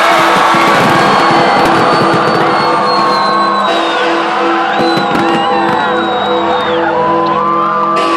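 Loud music with a pulsing beat under a large crowd shouting and whooping.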